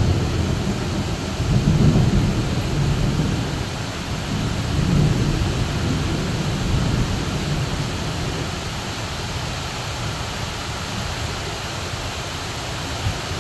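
Heavy rain pouring steadily, with thunder rumbling low in the first half, swelling a couple of times and then dying away.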